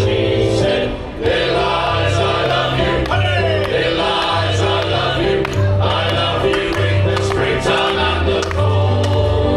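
Male choir singing together, amplified through a stage PA, over a low instrumental bass line that steps from note to note.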